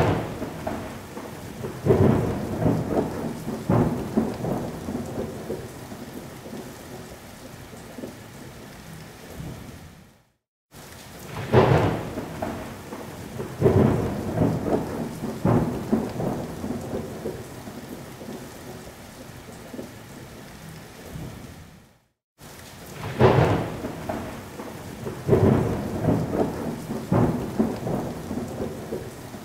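Thunderstorm sound: sharp claps of thunder and rolling rumble over steady rain. The same stretch of about eleven seconds repeats three times, each separated by a brief cut to silence.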